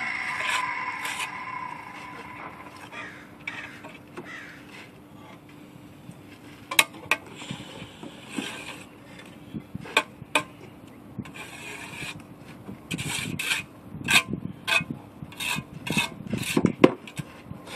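Steel mason's trowel scraping mortar and knocking against concrete blocks. The scrapes and sharp taps come scattered at first and grow much busier after about twelve seconds.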